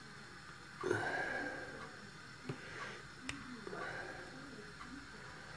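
A few sharp small metal clicks of a tool working at a fiddly retaining clip on a lock cylinder, with a noisy breath about a second in.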